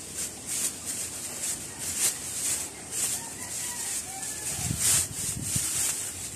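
Thin plastic bag crinkling and rustling in quick, irregular bursts as it is pulled open and fabric is drawn out of it.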